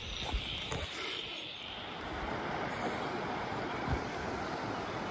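Steady rushing of a river flowing over rocks, swelling in about two seconds in. Before that, crickets chirp in a high, even trill.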